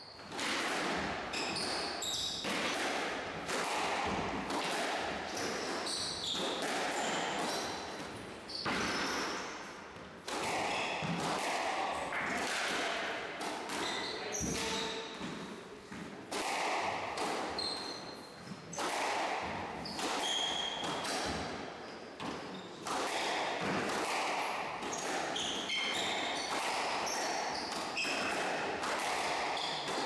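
Squash rally: the ball cracking off rackets and hitting the walls and floor at irregular intervals, about once a second, echoing in the court, with short high squeaks of shoes on the wooden floor.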